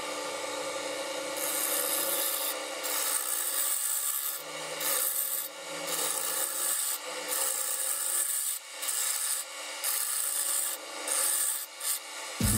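Wood lathe running with a steady hum while a hand-held turning tool cuts the spinning merbau workpiece. The cutting starts about a second and a half in: a hissing scrape in repeated passes of about a second each, with short breaks between them.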